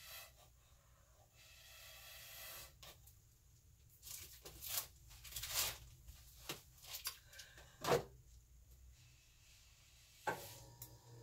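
Short puffs of breath blown through a plastic drinking straw to push wet acrylic paint across a canvas. Several come in quick succession from about four seconds in, the loudest near eight seconds.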